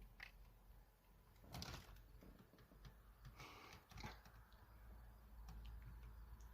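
Near silence: room tone with a low steady hum and a few faint brief noises about one and a half seconds in and again around three and a half to four seconds in.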